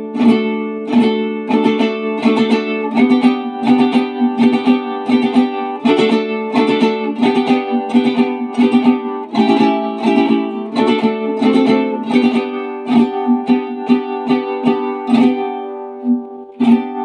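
Mexican vihuela with a flamed cedar body and a Spanish-style round soundhole, strummed in a steady rhythm of about three to four strokes a second, changing chords every few seconds. The strumming stops near the end, and one last strum follows.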